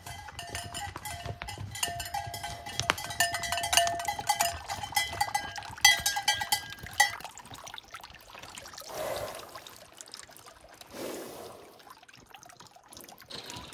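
Bells worn by a loose herd of horses, clanking and ringing irregularly as the horses come in along the trail. Later, two soft breathy rushes.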